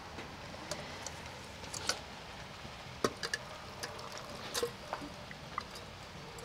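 Chiles and their soaking water poured from a pot into a glass blender jar: a steady low pour with scattered soft drips, plops and light clicks against the glass.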